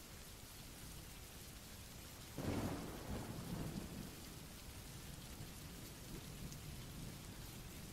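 Steady rain, a recorded sound effect, with a rumble of thunder that breaks in suddenly about two and a half seconds in and dies away over a couple of seconds.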